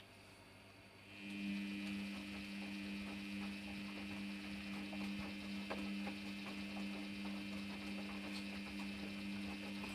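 Washing machine starting up about a second in and running with a steady motor hum, the drum turning, with a few faint clicks over it.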